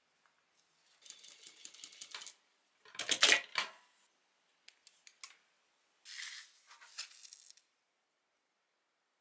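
Cloth rustling as the fabric and label are handled, then a sewing machine stitching a cloth label on in one short fast run about three seconds in, the loudest sound. A few sharp clicks and more rustling of cloth follow.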